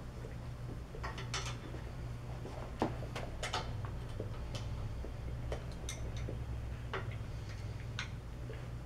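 Irregular metallic clicks and clinks of two wrenches on a bicycle's threaded headset as the top nut is locked down against the lock ring, loudest about three seconds in. A steady low hum runs underneath.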